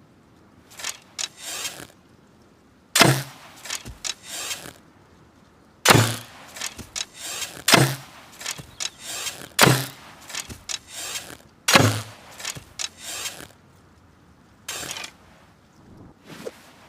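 Hunting bow being shot repeatedly: five sharp snaps of the string release, about two seconds apart, each with a brief low thrum. Softer clicks and rattles of handling the bow and arrows come between the shots.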